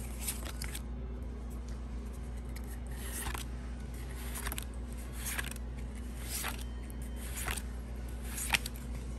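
Glossy trading cards sliding against one another as a stack of Pokémon cards is flipped through one card at a time, a short swish about once a second.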